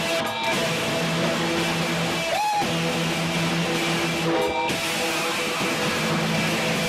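Hardcore punk band playing live, loud and dense, with distorted electric guitars.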